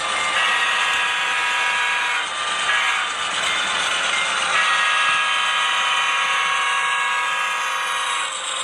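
A model diesel locomotive's sound-decoder horn blows a long blast, a short blast, then a long blast of several seconds, over the running noise of the train on the track.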